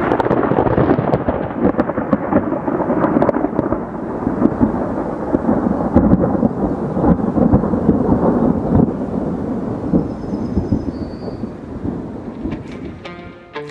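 Long rolling thunder, a continuous crackling rumble from a thunderstorm, fading out near the end.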